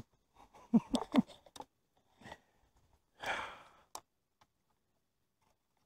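A person's brief wordless vocal sounds with a few clicks about a second in, then a breathy sigh a little after three seconds.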